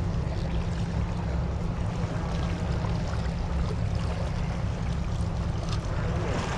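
Steady rush of a shallow creek, with wind rumbling on the microphone and the splashing of feet wading through the water.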